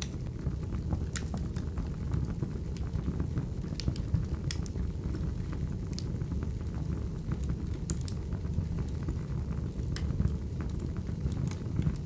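Fireplace fire burning: a steady low rush of flames with sharp crackles and pops at irregular moments, a few times over the stretch.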